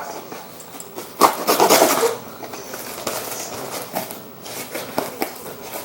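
Handling noises: objects rubbed and scraped, with a sharp knock about a second in.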